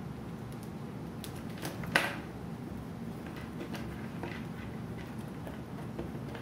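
Faint handling noises of three-strand rope being spliced with a fid: light rustling and a few small clicks, the sharpest about two seconds in, over a steady low hum.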